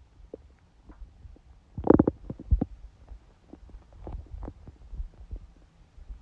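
A woman's stomach growling and gurgling during her menstrual period. Short gurgles come on and off, with a loud burst of churning gurgles about two seconds in and a softer run of them a couple of seconds later.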